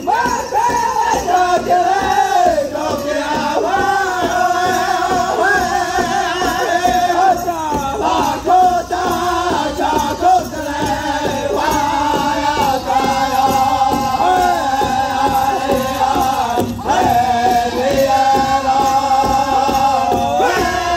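A powwow drum group of men and women sings together while striking one large shared drum with sticks in a steady beat.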